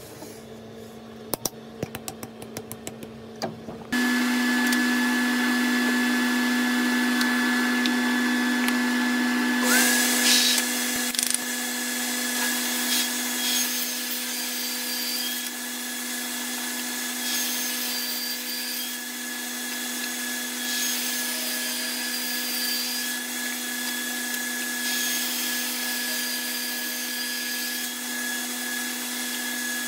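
A few light clicks as the table saw's rip fence is set. About four seconds in, the table saw starts and runs with a steady hum. From about ten seconds its blade rips a hardwood board into strips, a loud hissing cut over the motor that comes and goes as each strip is fed through.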